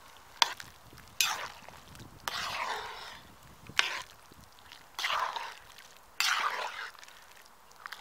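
A ladle stirring thick pea soup in a cast-iron cauldron: four sloshing strokes through the liquid, with two sharp knocks of the ladle against the pot, about half a second in and again near the middle.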